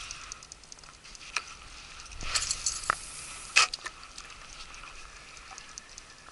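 Spinning rod and reel being worked: a fast run of faint ticks from the reel, then a short swish about two seconds in and a few sharp clicks.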